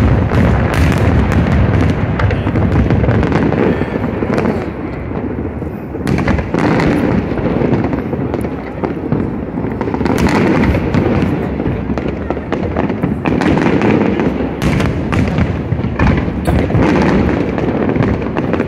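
Aerial fireworks shells bursting one after another with no break: a continuous rumble of booms laced with many sharp cracks and pops.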